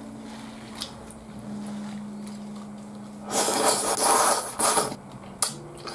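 Udon noodles slurped from chopsticks: one long, loud slurp lasting about a second and a half, just past the middle.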